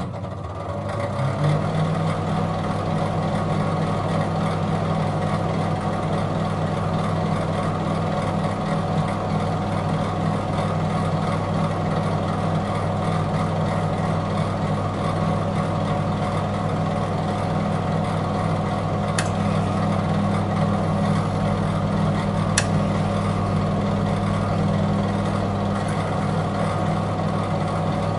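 Microwave oven running: a steady low electrical hum from the magnetron and fan, with two small clicks about two-thirds of the way through.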